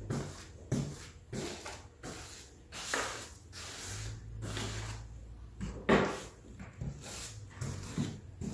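A paintbrush spreading wet white glue over brown paper on a plywood subfloor: repeated swishing brush strokes, a little under two a second, with a louder knock about six seconds in.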